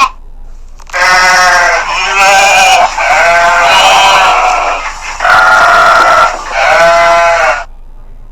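Sheep bleating: about five long, quavering bleats one after another, with short gaps between them.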